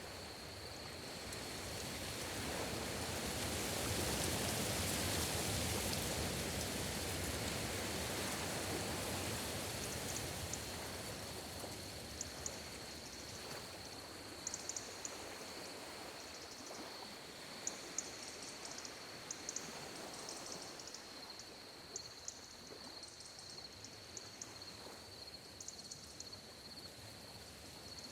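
Gentle sea waves washing ashore, swelling a few seconds in and slowly ebbing, with palm fronds rustling. A steady thin high tone runs throughout, and short high chirps come in from about ten seconds in.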